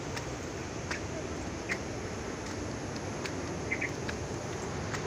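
Footsteps climbing stone steps, a light step about every three-quarters of a second, over a steady rushing outdoor background.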